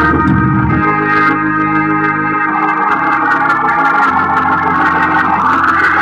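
Hammond organ chords played through a Leslie 122 speaker cabinet, whose amplifier is running on a jumped-in power transformer. Held chords change every second or two over sustained low bass notes, with no hum or distortion standing out.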